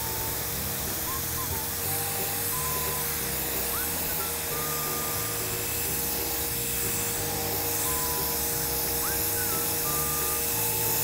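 Pressure washer running, its jet hissing steadily against concrete, with a steady hum from the machine. Background music with a repeating melody and bass line plays over it.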